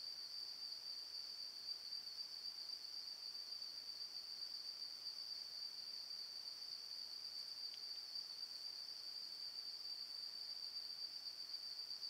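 Crickets trilling in a steady, unbroken, high-pitched chorus.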